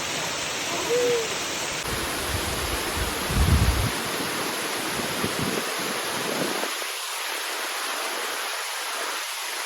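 Steady rushing roar of the Uracher waterfall, with a brief low rumble about three and a half seconds in and a short hooting tone about a second in.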